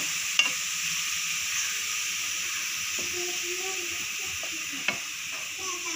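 Chopped tomatoes sizzling in a hot non-stick frying pan as a plastic spatula stirs them: a steady frying hiss, with two sharp knocks of the spatula against the pan, one just after the start and one about five seconds in.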